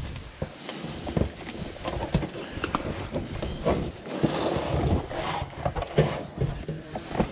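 A run of irregular knocks, bumps and rustles from equipment being handled and carried.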